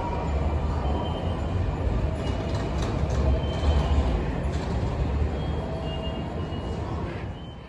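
Sotetsu 20000 series electric train pulling into a station platform: a steady low rumble of the running train, with a few short faint high tones, easing off near the end.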